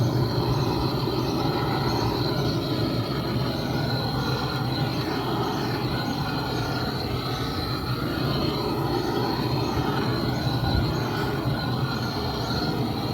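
Gas blow lamp burning steadily, a continuous flame roar, as it melts thick ice off a refrigerator's evaporator coil.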